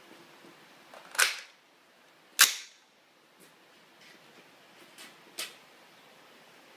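AR-15 rifle being reloaded: two sharp clacks, a magazine being seated and then the bolt slamming home, the second the louder. A few faint clicks and knocks follow as the rifle is shouldered.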